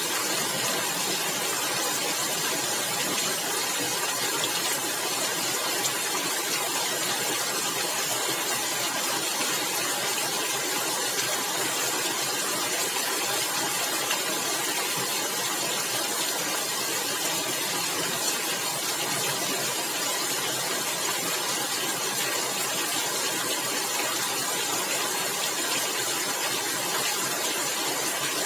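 Rain falling steadily on a tiled roof.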